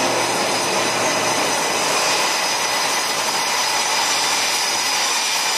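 Blue Angels F/A-18 Super Hornet jet engines running on the ground: a steady rush of jet noise with a high, even whine on top.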